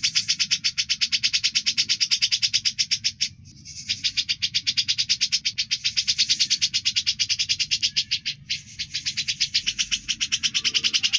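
Songbird masteran recording: a songbird chirping in a fast, even run of short, high notes, broken by two brief pauses. It is played as a song model to tutor caged songbirds.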